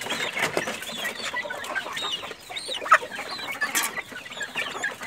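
Young game chickens cheeping and clucking in a coop: many short, scattered high chirps, with a sharp knock about three seconds in.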